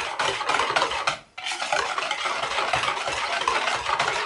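Stainless-steel balloon whisk beating a runny egg, sugar, yogurt and oil batter in a plastic bowl: fast, steady swishing strokes with a brief break about a second in.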